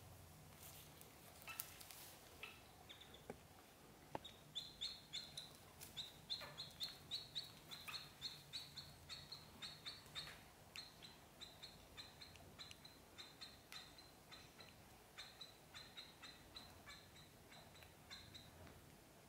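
Ducklings peeping softly: a steady run of short, high peeps at about two a second, starting about four seconds in.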